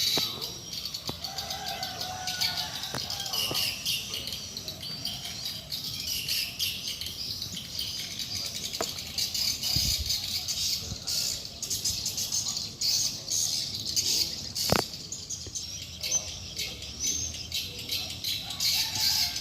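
Birds chirping and singing, a busy warble of high calls throughout, with a few sharp clicks.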